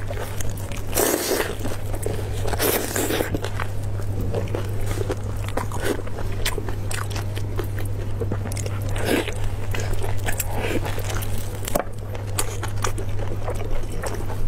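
Close-miked eating of sauce-braised beef on the bone: biting and chewing with many short mouth clicks, and longer bites about a second in, near three seconds and around nine seconds. A steady low hum runs underneath.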